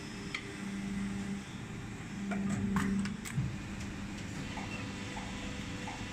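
Plastic injection moulding machine running with a steady low hum that swells twice, with scattered sharp clicks and a low knock about three and a half seconds in.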